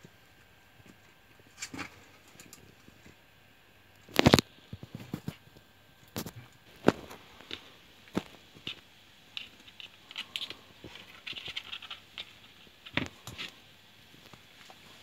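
Hand tools and small parts being handled on a workbench: scattered clicks, taps and knocks as pliers and wires are picked up and set down. The loudest knock comes about four seconds in, and a quick run of small clicks follows around ten to twelve seconds.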